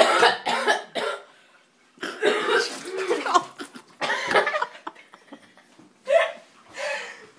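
A girl coughing in several fits, about five bursts spread over the seconds, from a throat irritated by a mouthful of dry cinnamon powder.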